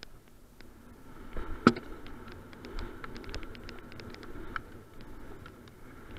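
Canyon Strive mountain bike landing off a wooden drop with one hard thump about one and a half seconds in, then rattling over rough dirt and gravel with a run of sharp clicks and taps from the bike.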